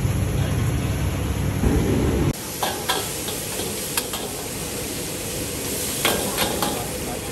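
Food sizzling as it is stirred in a hot pan, with sharp metal clinks of the utensil against the pan. A low rumble runs under it for about the first two seconds and then stops abruptly.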